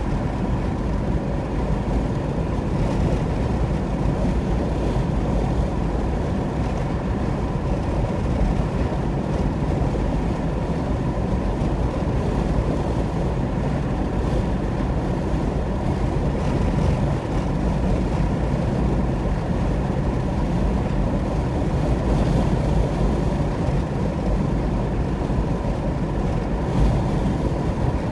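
Car driving at highway speed: a steady, low rumble of tyre and engine noise that holds even throughout.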